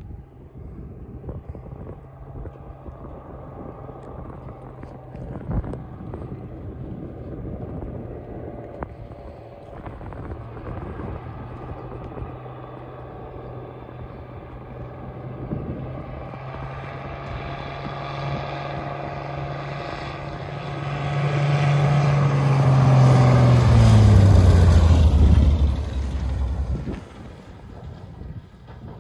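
Single-engine propeller bush plane flying in low and landing. Its engine drone grows steadily louder, then falls steeply in pitch as it comes past close by, and drops away sharply near the end.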